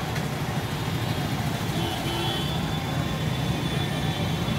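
Road traffic: motor vehicle engines running steadily as cars and motorcycles move along the street.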